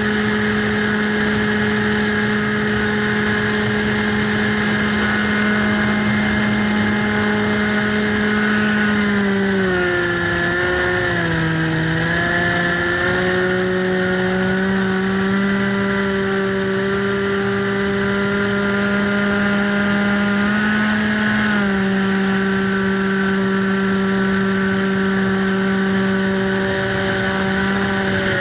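Motor and propeller of a radio-control FPV plane running at a steady cruise with a pitched drone. About a third of the way in the pitch drops and wavers as the throttle eases back, then it holds steady, rising a little and stepping down again about two thirds of the way through.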